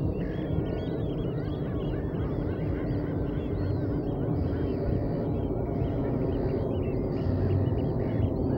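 Many gulls calling at once at a roost, a constant chatter of short, high, overlapping calls, over a steady low rumble.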